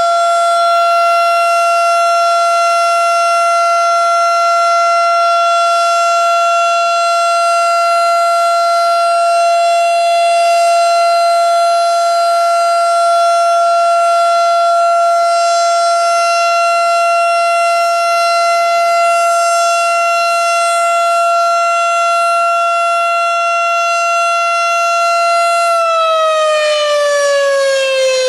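Outdoor warning siren sounding a steady tone for a tornado warning, then about 26 seconds in starting to wind down, its pitch sliding lower.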